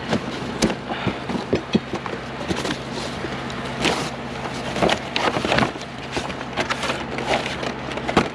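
Hands rummaging through a box of discarded household odds and ends, hard plastic and metal items clattering and knocking together irregularly, over a steady low hum.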